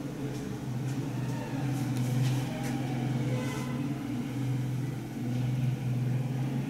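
A steady low mechanical hum, like a motor or engine running, that dips briefly a couple of times.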